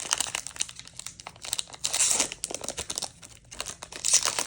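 A Pokémon TCG booster pack's foil wrapper crinkling as it is torn open, with the loudest crackling about two seconds in and again near the end.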